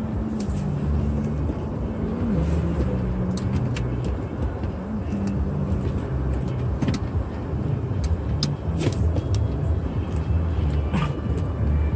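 A car driving slowly: a steady low engine and road rumble, its hum stepping up and down in pitch, with scattered light ticks.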